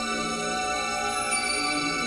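Background music of slow, long held chords.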